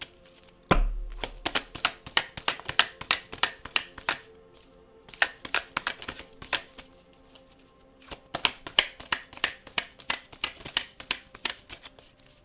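A deck of oracle cards being shuffled by hand: quick runs of crisp card clicks and slaps in three bursts, with short pauses between them. A single low thump comes about a second in.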